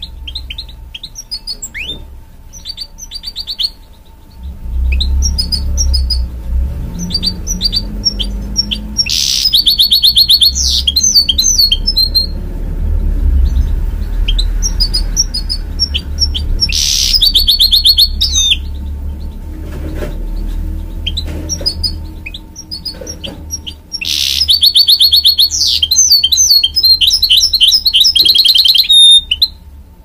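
Goldfinch × canary hybrid (mule) singing: fast, high twittering broken by three loud stretches of rapid trilling, the last one the longest, stopping just before the end. A steady low hum runs underneath.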